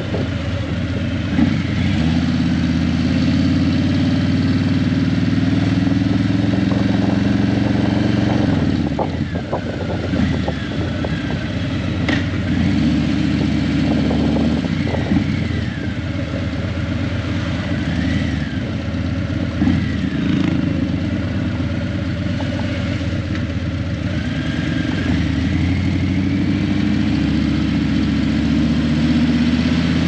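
Harley-Davidson Breakout 117's Milwaukee-Eight 117 V-twin running loud through Vance & Hines Eliminator 300 slip-on mufflers while riding, its revs rising and falling several times.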